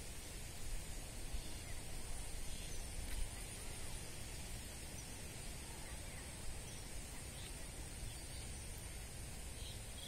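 Open-field outdoor ambience: wind rumbling on the microphone, a steady high-pitched hum, and a few faint bird chirps.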